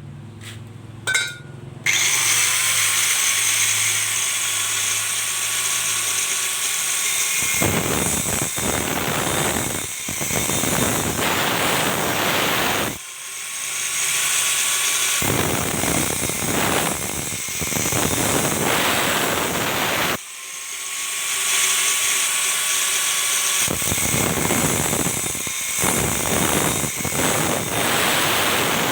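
An electric abrasive disc cutter starts about two seconds in after a few light metal clinks and cuts through steel, a loud, hissing grind. It eases off briefly twice and spins back up to carry on cutting.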